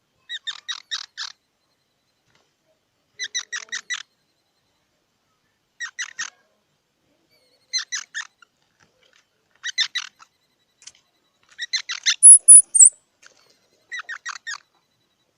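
Squirrel calling in short bursts of rapid chirps, about one burst every two seconds. A short high-pitched whistle about twelve seconds in is the loudest sound.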